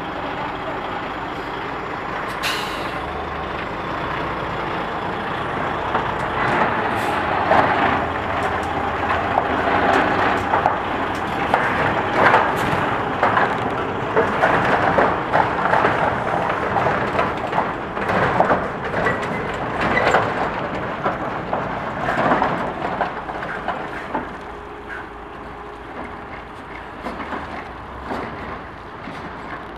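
DAF XF tractor unit's six-cylinder diesel engine pulling away with a loaded curtainsider semi-trailer, with a short sharp hiss of air about two and a half seconds in. It grows louder with rumbling and clattering as the rig passes close by, then fades near the end.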